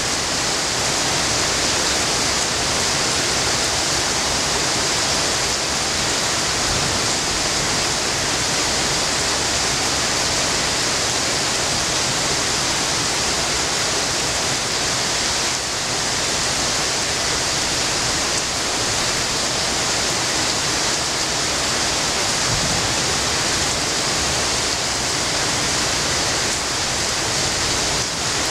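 Heavy rain falling steadily at night: a loud, even downpour hiss with no breaks.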